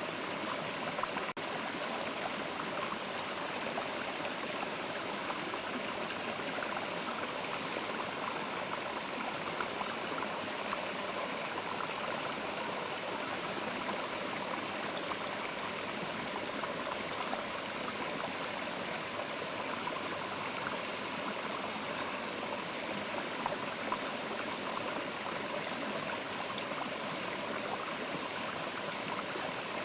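Mountain river flowing steadily: a constant, even rush of water.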